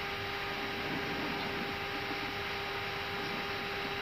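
Steady hiss and hum of an Airbus A319 cockpit at the gate, with two constant hum tones over an even rushing noise.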